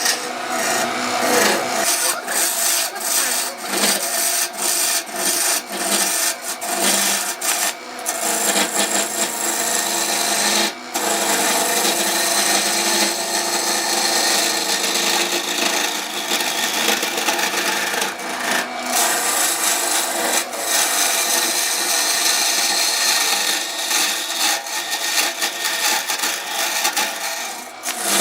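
Wood lathe running while a tool works the spinning wood: a steady scraping hiss over a low motor hum, broken by many brief gaps as the tool comes off the wood.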